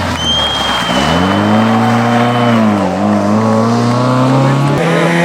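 Rally car engine revving loudly, its pitch climbing about a second in, then dipping and rising again as the throttle is worked. A long, high, thin whistle runs over the first couple of seconds.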